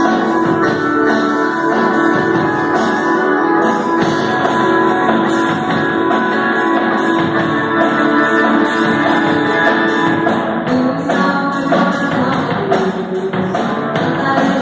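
Live worship music: guitar-led band playing with a tambourine or percussion keeping a steady beat.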